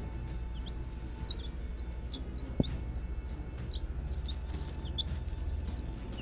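Newly hatched baby chicks peeping: short, high, downward-sliding peeps, a couple a second, coming faster and louder toward the end. One sharp knock about two and a half seconds in, over a steady low hum.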